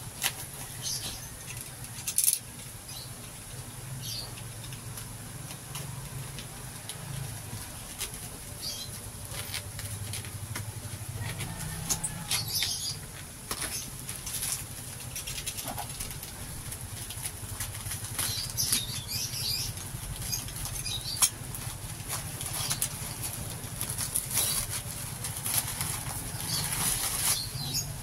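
Black plastic parcel wrap being slit and peeled off a cardboard box, rustling and crinkling in irregular bursts that grow busier in the second half.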